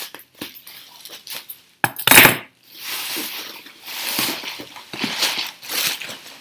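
Scissors snipping at a bubble-wrapped parcel, then plastic bubble wrap crinkling and rustling in repeated swells as it is pulled off. A sharp, loud crackle comes about two seconds in.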